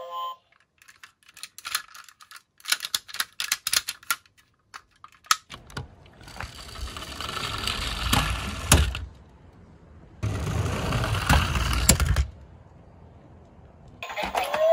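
Plastic toy cars clicking and clattering as they are handled in a cardboard box, then a toy fire engine's plastic wheels rolling with a rushing rumble along a wooden board, in two runs of a few seconds each. More clicks of handling the toys come near the end.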